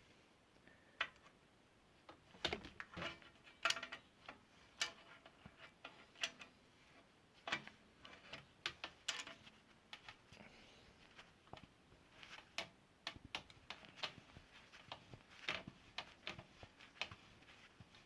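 Irregular light clicks and ticks of tools and bottom bracket parts as the right-side fixed cup of a vintage cup-and-cone bottom bracket is worked loose with a wrench or pliers.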